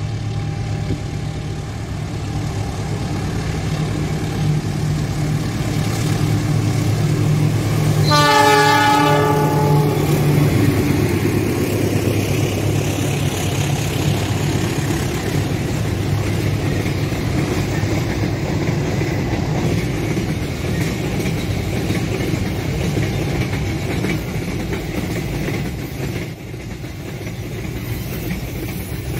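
Container freight train passing: the diesel locomotive drones as it approaches and sounds its horn once for about two seconds around eight seconds in, then the long string of container wagons rolls past with a steady rumble and clatter of wheels on the rails.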